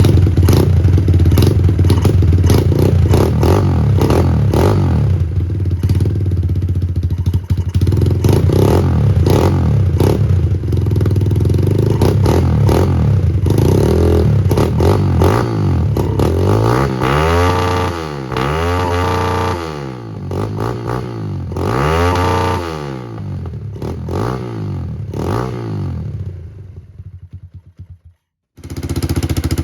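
Kawasaki KLX110's small single-cylinder four-stroke engine running through an aftermarket or stock exhaust under comparison. It runs steadily at first, then is revved up and down several times in the middle. It fades away, a brief silence follows, and the engine sound cuts back in near the end.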